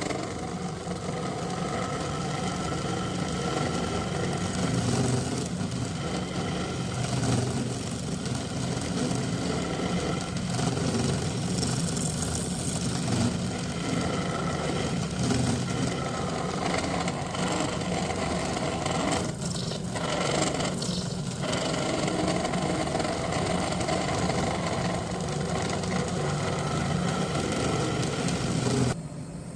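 Wood lathe running steadily with a mechanical hum. The sound dips briefly twice about twenty seconds in and drops off just before the end.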